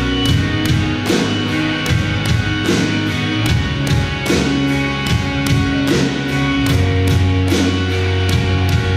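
Live rock band playing: guitar and bass notes over a drum kit, with cymbal hits keeping a steady beat about three times a second.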